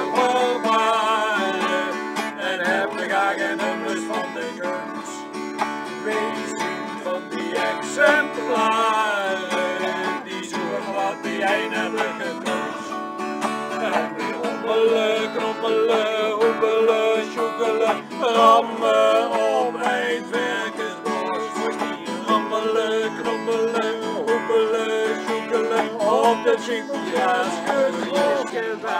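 Acoustic guitar strummed in accompaniment while several people sing a song together.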